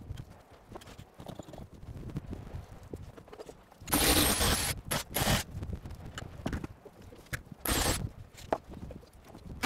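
Footsteps and scattered knocks on wet wooden terrace joists, then a cordless drill running in short bursts: one about four seconds in, a brief one just after five seconds, and another near the end.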